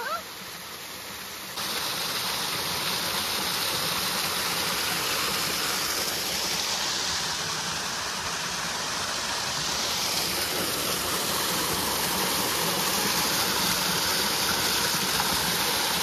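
Waterfall's rushing water, a steady even rush that jumps louder about a second and a half in.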